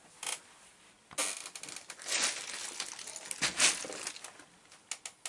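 A clear plastic bag packed with about six and a half pounds of loose LEGO pieces being handled and set down: the plastic crinkles and the bricks shift and clatter inside it. It starts about a second in, with the loudest rustles around two seconds in and again past three and a half.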